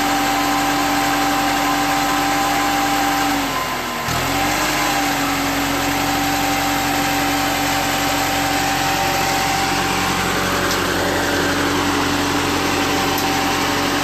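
Engine of a tracked, remote-controlled boom lift running steadily. About four seconds in, its pitch sags and the sound dips briefly, then picks back up.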